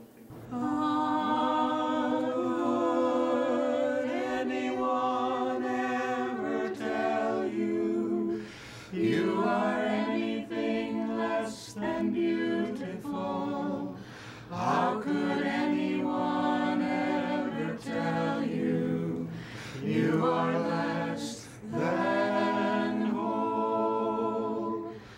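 Small a cappella chorus singing unaccompanied in close harmony, in held phrases with short breaks for breath between them.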